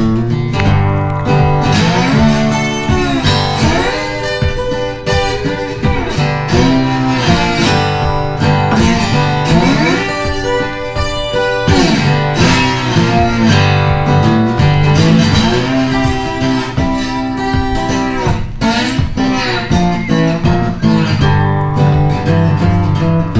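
Background music: plucked acoustic guitar playing over a steady bass line, with many notes sliding up and down in pitch.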